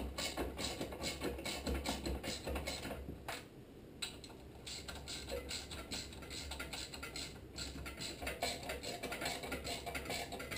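Hand socket ratchet clicking in quick even strokes, about four clicks a second, as it runs in the bolts holding the engine shroud of a Tecumseh HM80. The clicking stops for about a second a little past three seconds in, then goes on.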